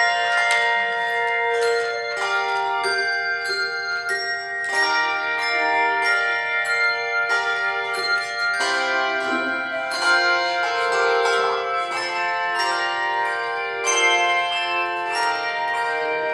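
Handbell choir playing a hymn: chords of many bells struck together at a slow, even pace, each note ringing on into the next.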